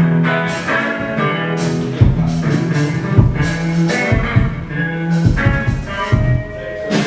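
Background music: guitar-led band music with a drum kit coming in about two seconds in.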